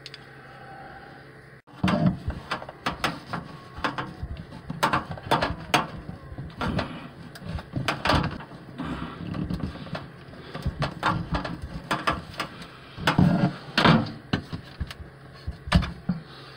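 Irregular clicks, taps and scrapes of a metal-shafted hand tool working against a plastic drawer-track bracket and the cabinet's side panel, starting a couple of seconds in. A few knocks near the end are the loudest.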